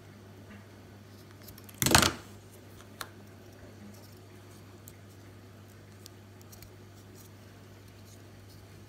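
Scissors snipping once through heat-shrink tubing about two seconds in, followed a second later by a small click, over a steady low hum.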